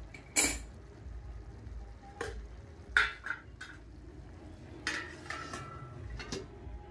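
Metal clinking against a cooking kadai, ending with a steel plate set on it as a lid: about five sharp clinks, the loudest about three seconds in, a couple of them ringing briefly.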